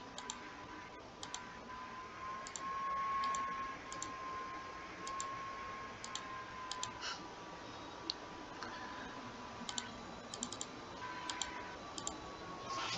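Computer mouse clicking a dozen or so times at irregular intervals, many clicks in quick pairs, over a faint steady whine.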